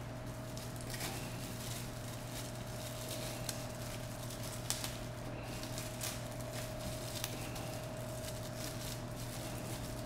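Faint rustling and crinkling of a small plastic parts bag being opened and handled, with scattered light clicks, over a steady hum.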